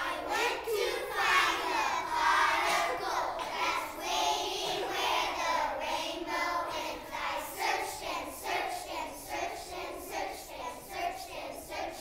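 A group of young children singing together in unison, starting suddenly all at once.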